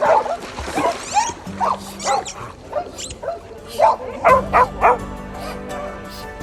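Dogs barking repeatedly, about a dozen short barks, over background music.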